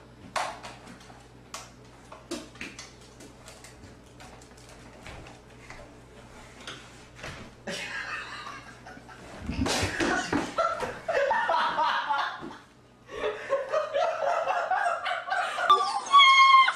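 A dog pushing and scrabbling through a small pet door, with a run of light knocks and clicks, then laughter. Near the end, bloodhound puppies whimpering and howling in high, wavering calls.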